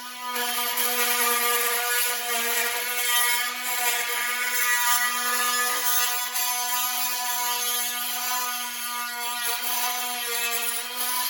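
Oscillating multi-tool running with a steady, even-pitched buzz as its blade cuts lengthwise through a vinyl plank. The buzz cuts off near the end.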